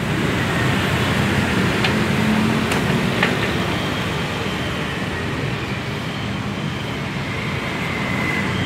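Jiangfa R185 10 hp single-cylinder direct-injection diesel engine running steadily.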